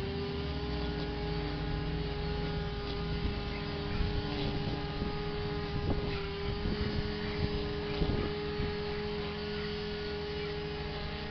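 A vehicle engine running steadily with a constant hum, and a couple of light knocks in the second half; its note sags just at the end.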